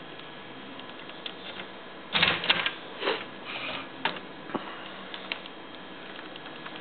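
Clicks and light knocks of a Phillips screwdriver against the plastic and metal housing of an HP LaserJet 4100 fuser assembly as the unit is handled and its cover screws are put back. A quick cluster of rattling clicks comes about two seconds in, then a few single clicks.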